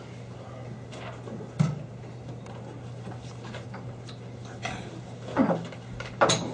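Room noise around a meeting table: a steady low hum, a sharp knock about a second and a half in, and two brief squeaks falling in pitch near the end.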